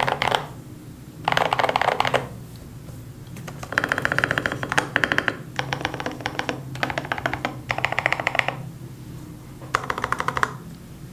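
NCR80 mechanical keyboard with lubed Gazzew Boba U4T tactile switches and MT3 keycaps being typed on in short, rapid bursts of keystrokes with brief pauses between, about seven bursts in all. The case has been damped with silicone to cut hollowness, giving the deep "thocky" keystroke sound.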